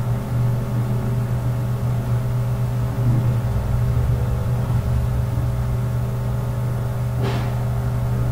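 Steady mechanical hum: a low drone with several steady higher tones over it. There is a brief noise near the end as the glass lid comes off the simmering pot.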